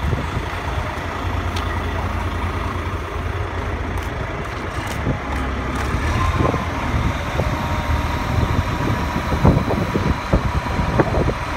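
Diesel engine of a wheeled mobile crane idling close by, a steady low rumble. A faint steady whine joins about halfway through, with a few light knocks.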